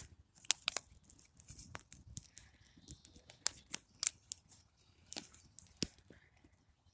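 Small campfire of damp sticks, bark and paper crackling: irregular sharp pops and snaps, a handful clearly louder than the rest.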